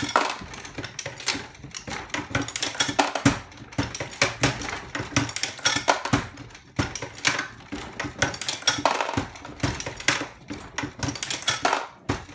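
Dillon XL650 progressive reloading press cycled by hand with a Swage It S650 primer pocket swager fitted: a quick run of irregular metallic clicks and clinks from the handle stroke, the shell plate indexing and brass cases being handled.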